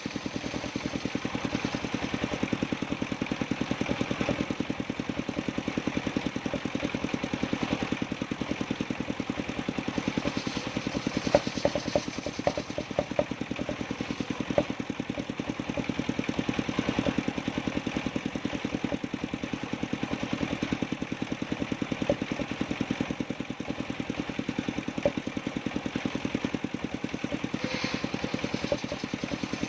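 Engine of a mobile circular-saw mill running steadily with an even, fast pulse, with a few sharp knocks a little before the middle.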